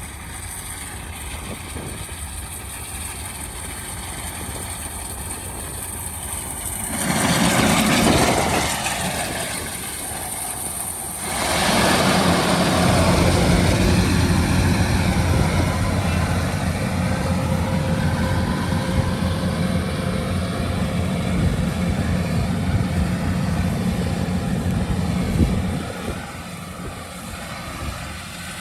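Rice combine harvester's engine running steadily. It gets noticeably louder about a quarter of the way in and again a little before the middle, then holds a steady hum.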